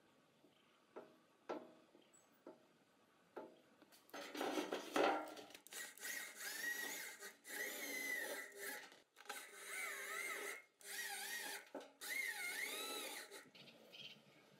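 Corded electric hand drill running in repeated bursts, its motor whine wavering in pitch as the bit bores through a motorbike tire into the metal barrel. A few light taps come before it.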